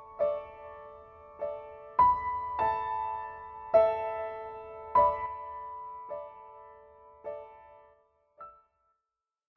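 Slow piano music: single notes and chords struck about once a second, each left to ring and die away. It fades out near the end, with one last faint note before silence.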